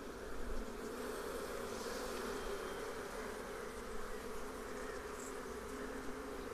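Steady hum of a honey bee colony over an opened wooden hive and the comb frame being lifted from it.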